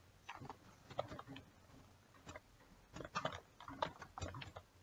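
Computer keyboard being typed on: runs of soft key clicks with a short pause near the middle.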